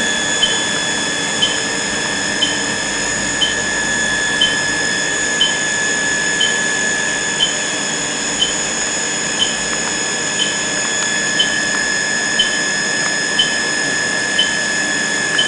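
Welding equipment running: a steady high-pitched electronic whine at several pitches, with a short chirp about once a second.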